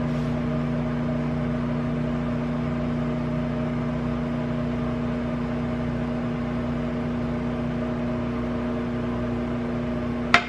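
Microwave oven running with a steady electrical hum, heating a bowl of beans. A single sharp click comes near the end.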